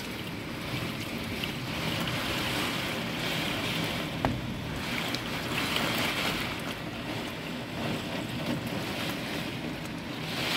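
Heavy typhoon rain pelting a window pane, a steady hiss that swells and eases in waves, with a single sharp tap about four seconds in.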